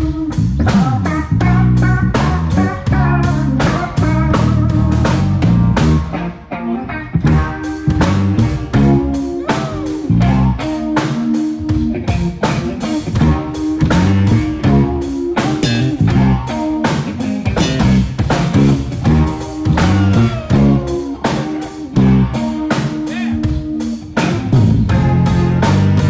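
Live band playing a song: electric guitar and drum kit over a bass line, with a dense, steady beat.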